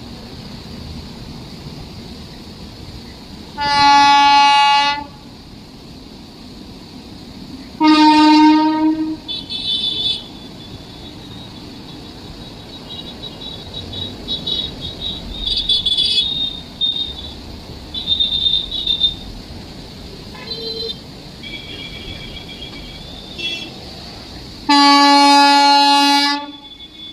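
Train horn sounding three loud blasts, each one to two seconds long, over the steady rumble of the train. Fainter short high-pitched tones come and go between the blasts.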